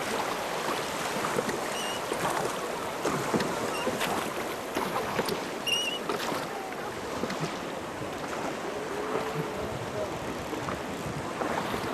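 River water rushing and splashing against a raft, a steady noisy wash with scattered short knocks and splashes.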